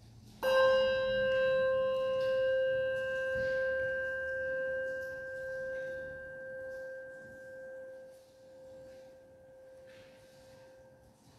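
A handbell struck once about half a second in, its clear tone ringing on and slowly fading away: a memorial toll rung after a name of the departed is read.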